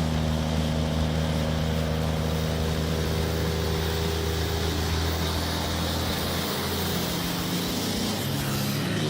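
A heavy truck's engine running steadily, its pitch dropping and then climbing again near the end.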